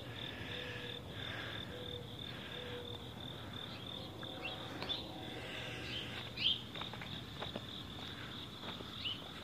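Insects chirping outdoors: a steady, evenly pulsing high trill that runs on without a break. Faint rustles and a few soft clicks come in around the middle.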